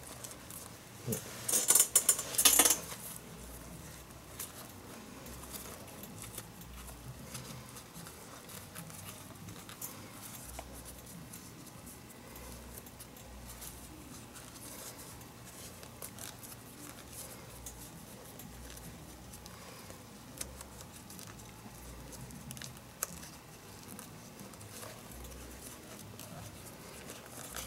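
Leather lace being pulled through the lace holes of a baseball glove during palm relacing: a loud burst of sliding lace about a second and a half in, lasting about a second. After it come faint handling clicks and rustles of lace and leather.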